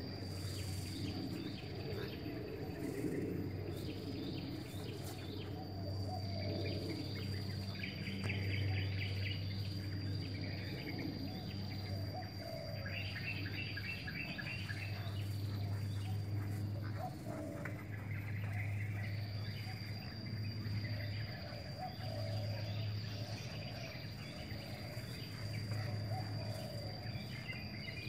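Outdoor ambience: birds chirping in short stretches over a steady, high-pitched insect drone that drops out for a couple of seconds after the middle, with a low steady hum underneath.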